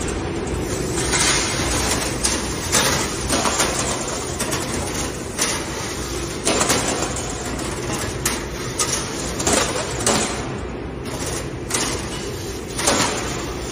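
XT-K1530 uncoiling-straightening laser cutting line running: a steady machine hum overlaid with irregular knocks and clatter.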